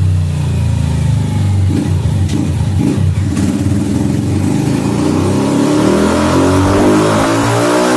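Modified single-cylinder Honda CG motorcycle engine with an SFX aftermarket sport exhaust, pulling under load on a chassis dynamometer in fifth gear. Its note climbs steadily in pitch from about halfway through as the engine accelerates on the roller.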